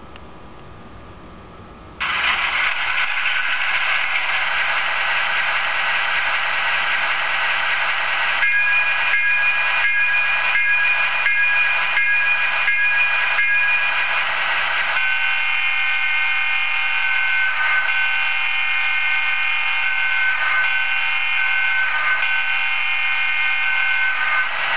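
Sound decoder in an HO-scale Athearn MP15AC model diesel switcher, playing through a small speaker with no bass. The diesel engine sound comes on suddenly about two seconds in. About a third of the way through, an electronic locomotive bell dings repeatedly for some six seconds. Then an older-style horn sounds a steady chord of several notes.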